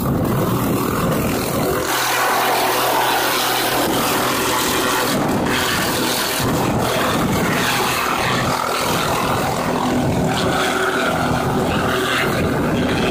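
Helicopter hovering and lifting off close to the ground: turbine engine and main rotor running loud and steady. The low rumble drops away for a couple of seconds about two seconds in.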